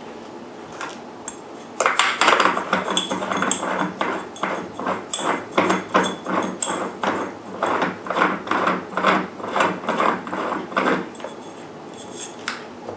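Repeated ratcheting clicks from a small mechanism being worked by hand, about three strokes a second. They start about two seconds in and stop about two seconds before the end, with a few isolated clicks after.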